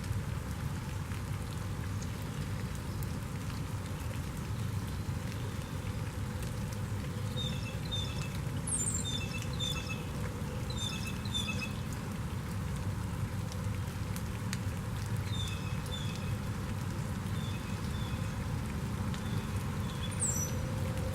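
Steady rain falling, with scattered drips. From about seven seconds in, a bird sings short notes in quick pairs, with a couple of high calls that sweep downward.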